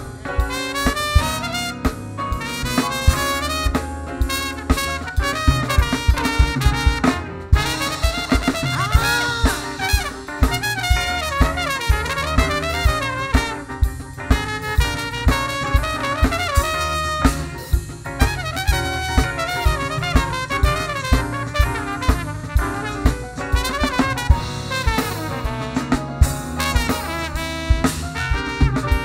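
Live jazz-blues band playing an instrumental break: a trumpet solo over drum kit, electric bass and keyboard, with steady drum hits throughout.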